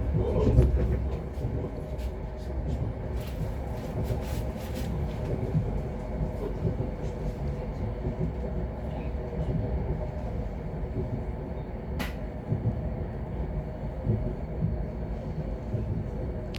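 Passenger train running, heard from inside the carriage: a steady low rumble of wheels on rails with scattered light clicks and one sharp click about twelve seconds in.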